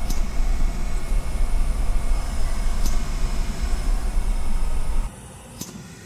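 Low, steady rumbling noise closing out a deathcore track after the band's final hit cuts off. It drops sharply about five seconds in to a faint, fading tail.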